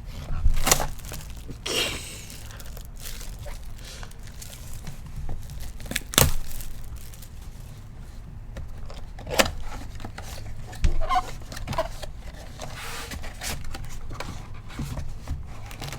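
Plastic wrapping being torn and crinkled by hand, with scattered taps and rustles of cardboard: a sealed box of trading cards being opened.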